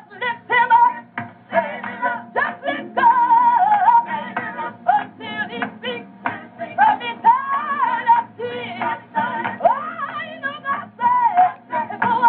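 Gospel singing from an old recording that sounds thin and lacks its top end: a high lead voice with wavering, sliding notes over a steady lower accompaniment.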